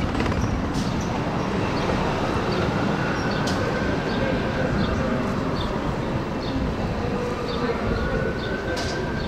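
Train running with a steady rumble and a faint whine that rises and falls twice.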